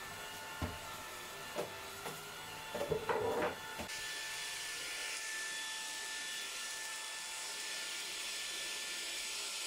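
Dreame cordless stick vacuum running with a steady motor whine on a tiled floor. A few sharp knocks come in the first three seconds. About four seconds in, the sound switches to a smoother, hissier steady run.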